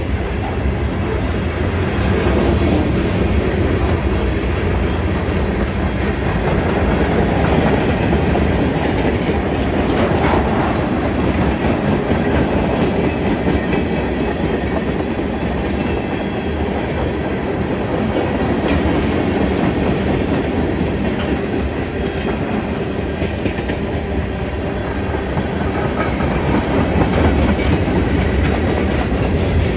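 Freight cars of a CN freight train, tank cars and covered hopper cars, rolling steadily past; a continuous noise of steel wheels running over the rails.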